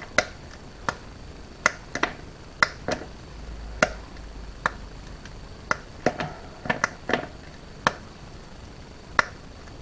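Chocolate bars being snapped into pieces and dropped into a bowl: irregular sharp snaps, one or two a second.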